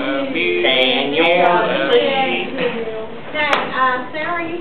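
Several teenage students' voices overlapping.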